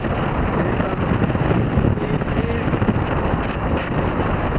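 Strong wind buffeting the microphone aboard a Hobie 16 catamaran under sail, a loud, steady rushing noise.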